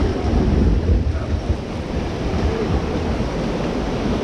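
Wind buffeting an action camera's microphone: a loud, steady rushing noise, heaviest in the low end.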